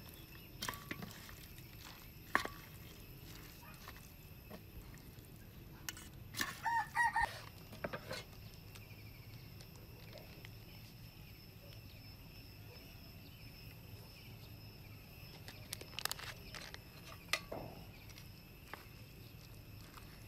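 A chicken calls for about a second, a little past six seconds in, over a quiet background. Now and then there are light clicks of chopsticks and utensils against a metal tray.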